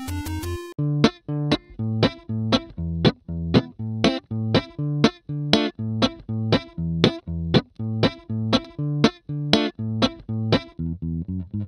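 Closing theme music. A short rising run of electronic notes stops about a second in, and a plucked guitar and bass line follows with evenly spaced notes, about two a second, that quicken near the end.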